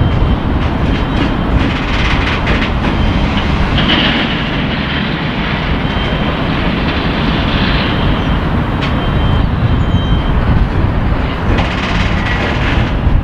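A rake of ballast hopper wagons being shunted slowly through a yard by a class 08 diesel shunter. A steady low rumble runs throughout, with wheels clicking over rail joints and a thin high squeal that comes and goes.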